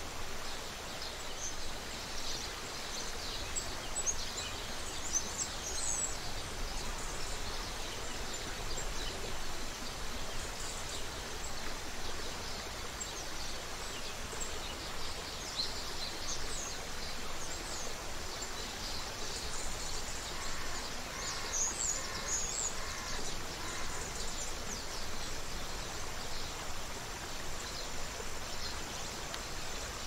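Creek water running with a steady rush, with small birds chirping and twittering over it throughout. About twenty seconds in, a bird gives a short run of lower, evenly spaced calls.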